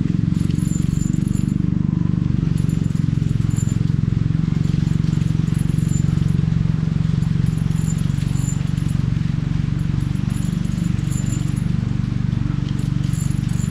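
A steady low drone, like a small engine running at low revs, with faint high chirping coming and going.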